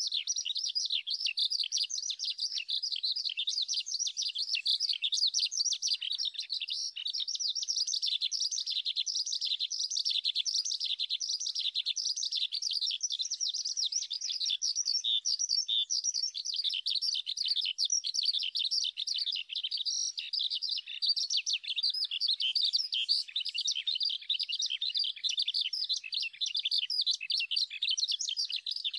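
Male Eurasian skylark singing in flight: a continuous, rapid stream of high warbling and trilling notes that runs on without a pause.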